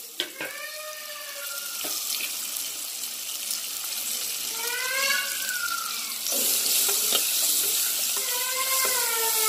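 Sliced onions frying in hot oil in a steel pan: a steady sizzle that grows louder, with a step up about six seconds in. Three drawn-out calls that rise and fall are heard faintly in the background.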